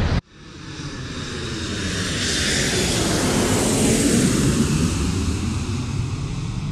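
Boeing 737 jet airliner passing close by. Its engine noise starts abruptly, swells to a peak a few seconds in and slowly fades, its pitch sliding down as it goes past.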